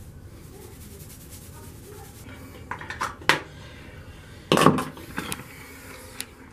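A series of clacks and knocks from small hard objects being handled and set down on a countertop, starting about two and a half seconds in, with the loudest clatter about four and a half seconds in.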